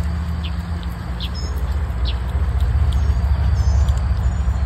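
A low, steady rumble under brief high bird chirps that come about once a second.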